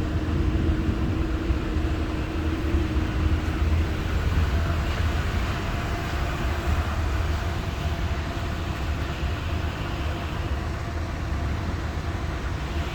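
Strong sandstorm wind buffeting the microphone: a steady, heavy low rumble with an even rush of noise over it.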